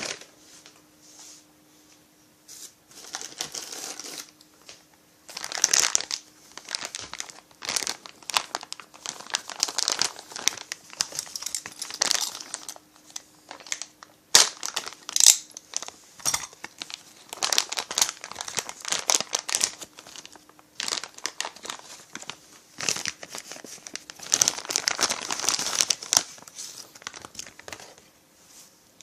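Packaging crinkling and rustling in irregular bursts as chainsaw kit parts are unwrapped and handled.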